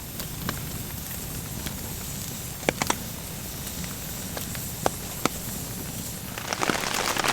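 Campfire crackling with a few sharp pops over the steady hiss of heavy rain. About six seconds in, a dense patter of raindrops on the tarp sets in.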